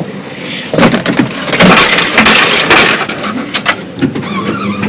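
Vending machine rattling and clattering for about two seconds, a dense run of sharp metallic impacts, then lighter rattles.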